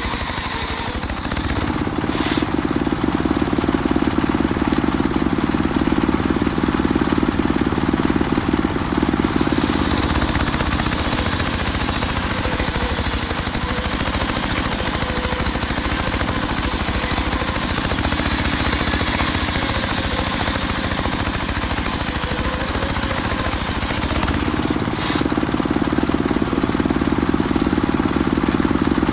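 Homemade circular saw rig running while it rips mahogany, a loud steady mechanical noise whose heavier low tone eases off about nine seconds in and comes back near the end.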